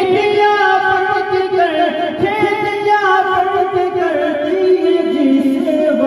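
A man singing a hamd through a loudspeaker system, drawing out long notes that waver and glide between lines of the hymn.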